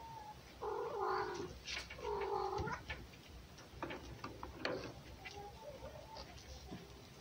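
Domestic cat yowling twice in drawn-out calls while play-fighting with a fox, followed by a run of short sharp clicks and scuffling.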